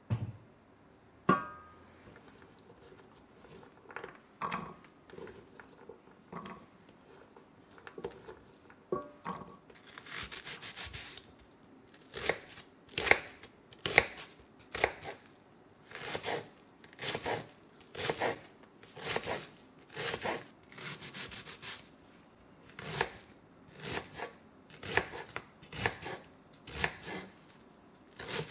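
Kitchen knife cutting a peeled onion on a wooden cutting board: a sharp knock about a second in, a few scattered cuts, then from about a third of the way in a steady run of crisp knife strokes, one or two a second, as the onion is diced.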